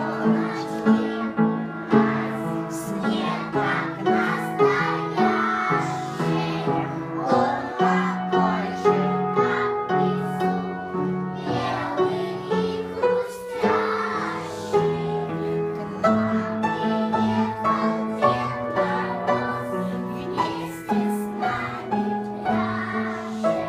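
Upright piano playing a song's accompaniment, with a group of children singing along.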